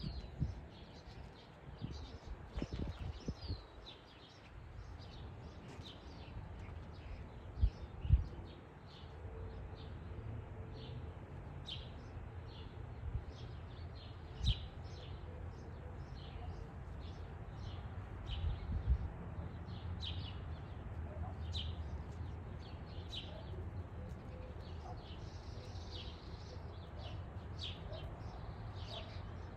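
Birds chirping in short, repeated calls, over a low steady rumble, with a few sharp knocks, the loudest about a quarter of the way in.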